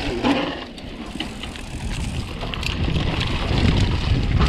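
Wind buffeting an action camera's microphone on a mountain bike descending a rough dirt trail, with scattered small rattles and ticks from the bike and trail surface.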